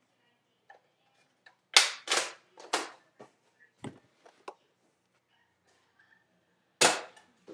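Sharp plastic clacks of a modded Nerf Recon spring-plunger dart blaster being primed and fired: three loud clacks in quick succession about two seconds in, a few fainter clicks, then another loud clack near the end.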